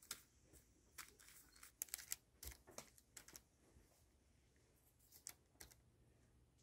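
Faint crinkles and light taps of baking paper as floured raw anchovies are laid on it by hand: a scatter of short, quiet clicks, thickest in the first few seconds, with a couple more near the end.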